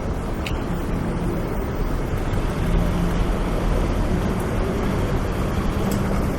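Steady urban street ambience: a continuous low rumble of traffic and engines with a faint steady hum and an occasional click.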